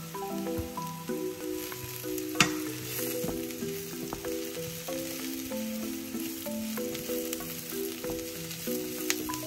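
Sliced mushrooms and onion sizzling as they fry in a nonstick pan, with a single sharp knock about two and a half seconds in, over soft background music.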